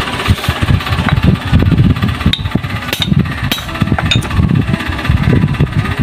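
An engine running nearby with an uneven low rumble, and a few light metal clicks from a part being handled.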